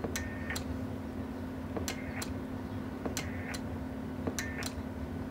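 Keying relays of a Sweet 16 transistor CB amplifier clicking in and out in pairs as the microphone is keyed and released four times in quick succession, with a faint high tone between the clicks of each pair and a steady low hum under it all. The test shows whether the relay sticks latched after unkeying.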